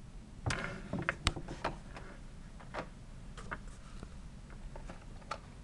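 Handling noise: a series of light, irregular clicks and knocks as carded die-cast toy cars in plastic blister packs are handled and swapped for the next one, over a faint steady room hum.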